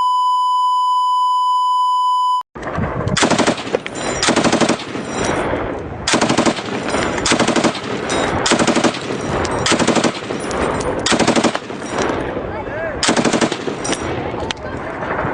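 A steady high beep tone for about two and a half seconds that cuts off, then airsoft guns firing repeated rapid full-auto bursts.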